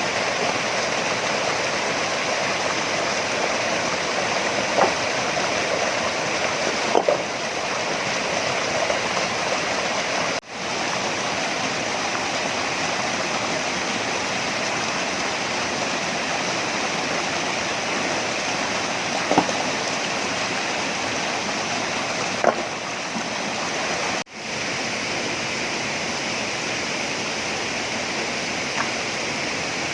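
Steady rushing of flowing water, with a few brief sharp clicks here and there and two short dropouts.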